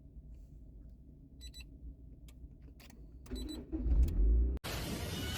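A car's electronic warning chime sounding about every two seconds over a low, steady vehicle rumble. It is followed, about four and a half seconds in, by an abrupt switch to a loud, even rushing noise.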